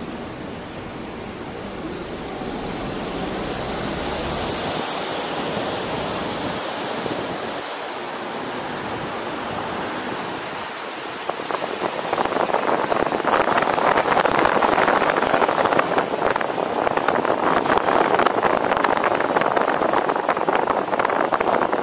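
Wind rushing over a roof-mounted action camera's microphone while driving, with tyre and road noise under it. It is a steady hiss that turns louder and rougher, with a fluttering buffet, about halfway through.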